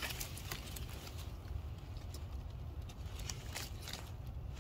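Leaves and twigs brushing a handheld phone, giving scattered light clicks and rustles over a steady low rumble on the microphone.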